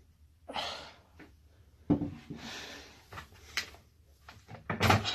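Handling noises from a plastic toy Darth Vader helmet: a few sharp clicks and knocks, with brief rubbing and brushing sounds between them.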